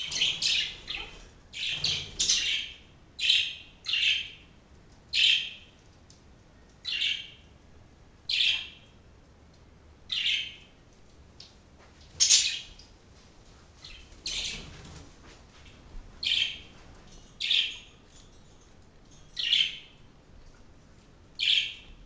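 Pet budgerigars calling: a string of short chirps, about one a second, with a busier run of calls in the first few seconds.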